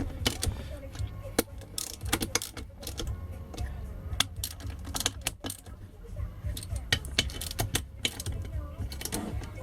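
Irregular metallic clicks and clinks of hand tools on the engine's nuts and bolts, with a low steady hum underneath.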